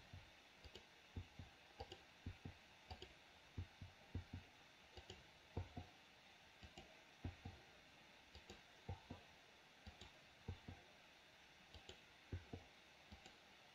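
Faint, irregular clicking of a computer keyboard and mouse: the I key pressed about a dozen times, mixed with mouse clicks, often in close pairs.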